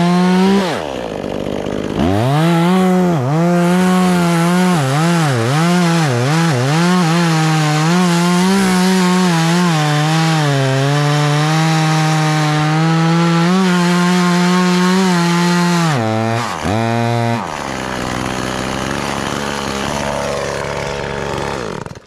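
Two-stroke chainsaw cutting wood at high revs, its pitch dipping and recovering again and again under the load of the cut. About sixteen seconds in it drops back, revs once briefly, and settles to a lower, quieter running speed.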